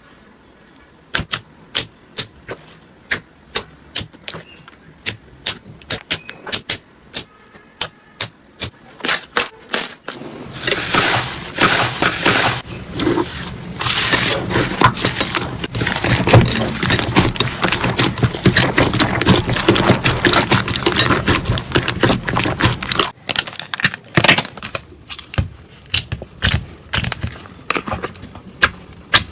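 Slime being worked by hand: sharp separate clicking pops, one or two a second, then from about ten seconds in a loud, dense stretch of crackling and squishing lasting some twelve seconds, after which the single pops return.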